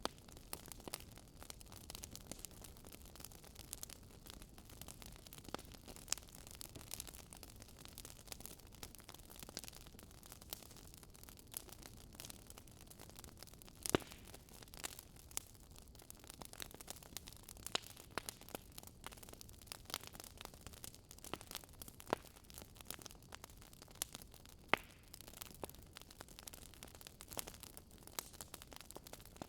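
Wood fire crackling: irregular pops and snaps over a faint low rumble, with a louder pop about fourteen seconds in.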